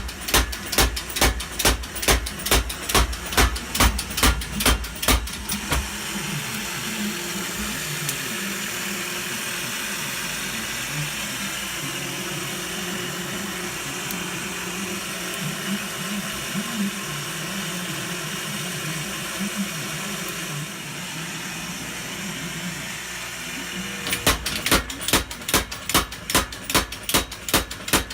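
Custom-built power hammer striking in a fast, even rhythm, about three blows a second. The blows stop about five seconds in, leaving the hammer's drive running steadily with a low, wavering hum. The hammering starts again near the end.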